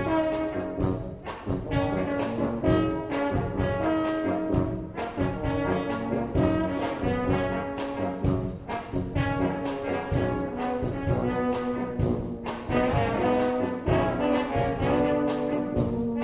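Brass band music: trombones and trumpets playing a tune over a steady beat.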